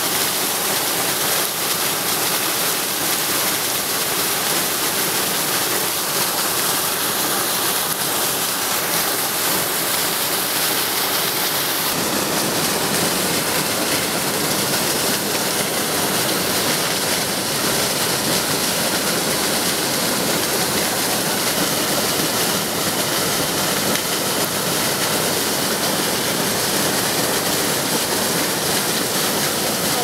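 Water of a tall mountain waterfall pouring in several steps down a limestone cliff, a steady rush of falling and splashing water. About twelve seconds in the sound shifts and becomes fuller and lower.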